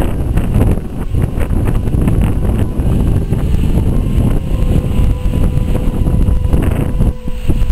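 A steam locomotive hauling a train of coaches slowly past at close range, heavily buffeted by wind on the microphone.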